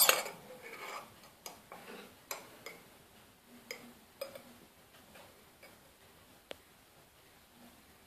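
Metal teaspoon clinking against a ceramic cup while a matcha tea bag is stirred: one loud knock at the start, then light, irregular clicks that stop after about six seconds.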